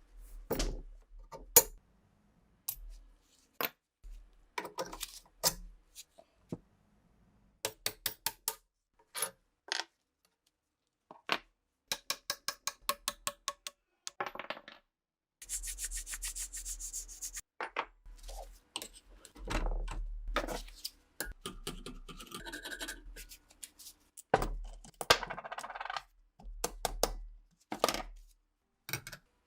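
Hand work on rifle parts: sharp clicks and taps of small hard parts being handled, with short runs of quick ticks and several stretches of rubbing or scraping, the first about fifteen seconds in.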